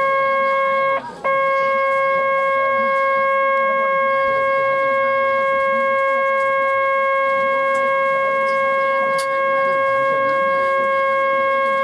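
Loud, steady electronic buzzer tone on one pitch, breaking off briefly about a second in and then sounding on without a break.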